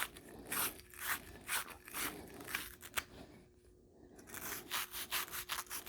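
A hand tool scraping copper pipe in repeated back-and-forth strokes, about two a second, with a short pause just after the middle and quicker strokes near the end, as the copper is cleaned for soldering.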